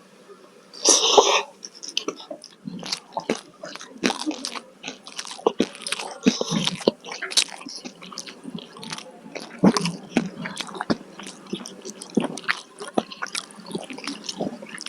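Close-miked eating: one loud crunchy bite about a second in, then continuous chewing with many small wet clicks and crunches.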